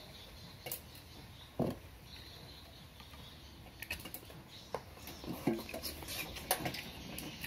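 Hands handling wires and connectors on a workbench: scattered light clicks and taps, a duller knock about one and a half seconds in, and a quicker run of small clicks in the second half.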